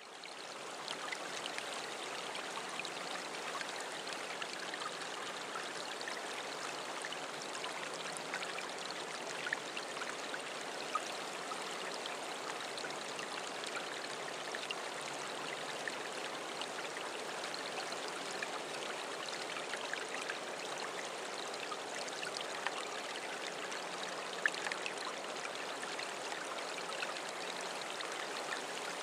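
Mountain river water rushing and splashing in a steady flow, fading in over the first second.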